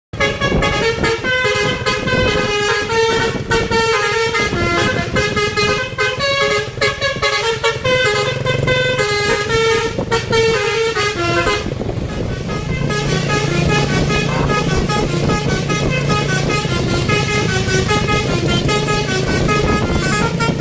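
Bus 'telolet' horn: a multi-tone bus horn playing a quick tune of stepped notes over and over. About twelve seconds in the tune changes, and a steady low hum runs under it.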